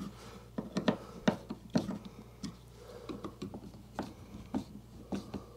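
Screwdriver turning the mounting-ring screws of a garbage-disposal mount up against a stainless sink's drain flange, giving irregular light clicks and rubbing of tool and metal parts.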